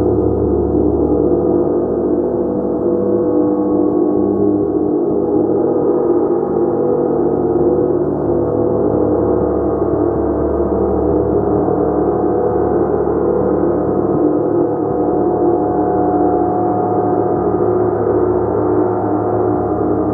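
A large gong played continuously, its dense wash of many overlapping tones swelling and sustaining without any single stroke standing out.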